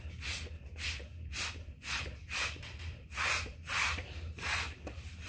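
Fast, forceful puffs of breath blown through a drinking straw, a rapid series of short, sharp blasts about two to three a second. This is the straw-blowing painting technique: the hard bursts push a watery paint puddle across the paper so that it spreads out in thin, spidery lines.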